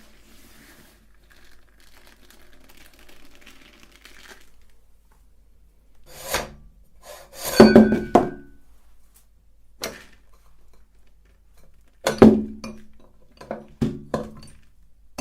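Hard metal knocks and clinks: a handful of sharp thunks with brief ringing, the loudest about eight and twelve seconds in, after a few seconds of faint scratching. These are typical of the meat grinder's metal parts being handled and set down.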